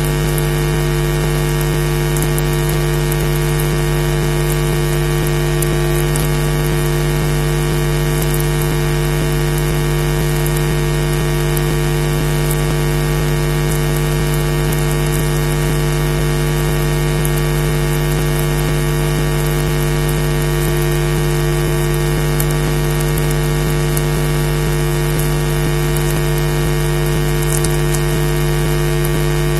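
Steady electrical hum with many evenly spaced overtones under a layer of hiss, with a few faint clicks: interference on a nest webcam's audio feed, with no bird calls heard.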